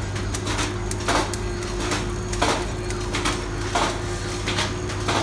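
Brake pad pillow-packing (flow-wrap) machine running with a steady hum. A sharp clack comes about every 1.3 seconds, one per pack at its 45-bags-a-minute setting, with lighter knocks in between.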